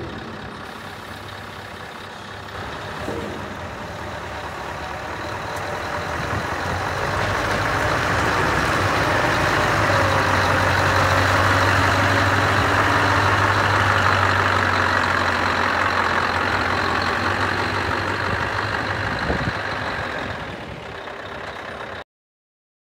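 Scania R500 truck's V8 diesel engine idling steadily. It grows louder for a long stretch in the middle, heard close to the side exhaust outlet, then eases off and cuts off abruptly near the end.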